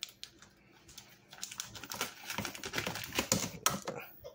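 Scissors cutting through the plastic shrink-wrap around a bottle, the wrap crinkling and crackling. It starts quietly, then from about a second in comes a dense run of sharp snips and crackles, loudest near the end.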